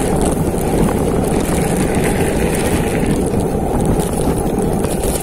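Wind buffeting the microphone and the steady rumble of a mountain bike descending a dirt trail.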